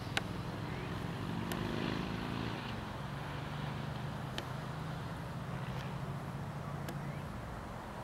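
Distant TGV high-speed train running on the line: a steady low rumble and rushing noise, with a tone that falls in pitch about two seconds in, then a steadier low hum. A few sharp ticks stand out over it.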